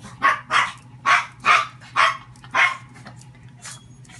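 A dog barking six times in quick succession, about two barks a second, then falling quiet.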